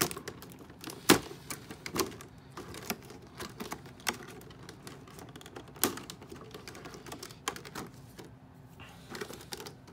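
Clear plastic doll packaging being handled and cut open: irregular sharp plastic clicks and taps, the loudest about a second in.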